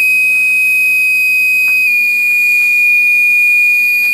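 1500-watt spindle of a 6040 CNC router running at 178 Hz with a loud, steady high-pitched whine that steps slightly lower in pitch about two seconds in. It sounds horrible, and the owner puts the noise down to bad bearings.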